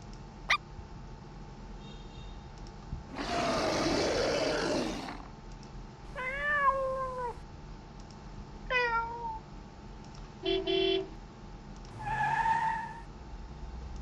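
A run of separate short generated sound effects: a single click, a noisy burst lasting about two seconds, then two short pitched calls that rise and fall like a cat's meow, a brief buzzy electronic tone, and one more short pitched sound near the end.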